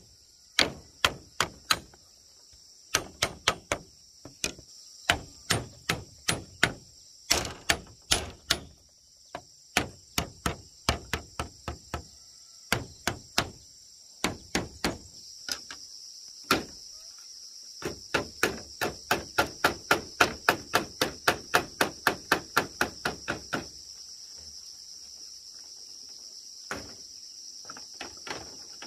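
Repeated sharp knocks of hand-tool blows, in runs of several at about two to three a second with short pauses, a fast steady run near the end, then only a few single knocks. Insects buzz steadily throughout.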